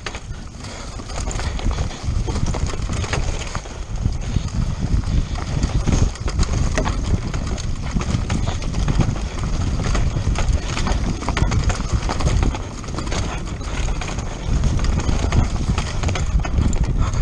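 Mountain bike rattling at speed down a rough dirt trail: rapid irregular clacks and knocks from the chain, frame and suspension as the tyres hit roots and stones, over a heavy wind rumble on the action-camera microphone.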